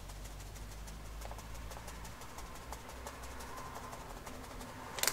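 Wood smoking dust being scooped and sprinkled into the trough of a tabletop fish smoker: faint, rapid pattering and scraping ticks.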